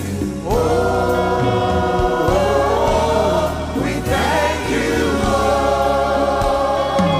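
Gospel music with a choir singing long held notes over a steady band accompaniment.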